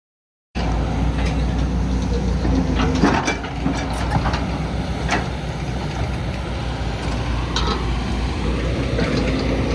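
Heavy diesel engine of a Poclain excavator running steadily with a low rumble, with a few sharp metallic knocks spread through it.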